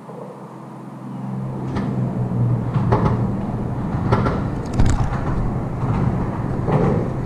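A motor vehicle's low, steady hum, rising about a second in, with several sharp knocks and clacks over it.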